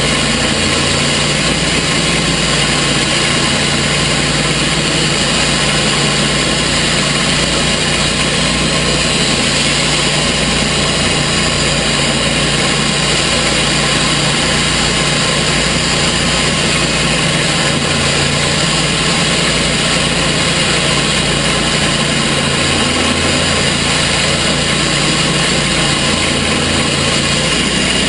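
Gas engine of a portable sawmill running steadily, with no change in speed.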